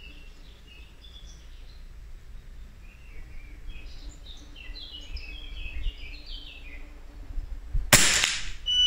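Small birds chirp in the background. About eight seconds in comes a single .22 LR rifle shot through a sound moderator: a sharp crack with a short ringing tail. A high electronic beep follows right at the end.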